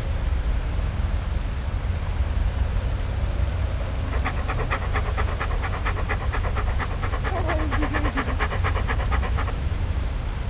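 Dog panting quickly, about five breaths a second, from about four seconds in until near the end, over a steady low rumble.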